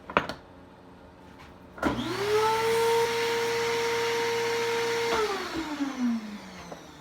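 A click, then a small high-speed electric motor, likely a shop vacuum clearing metal chips from the tapped hole, switches on. It spins up with a rising whine, runs at a steady pitch for about three seconds, then is switched off and winds down with a falling whine.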